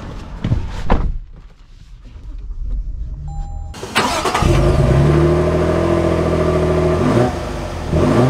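A Toyota Tundra's twin-turbo V6 starts up about four seconds in and settles into a steady idle, heard from outside at ground level beside the truck. A few clicks and knocks come before it in the first second.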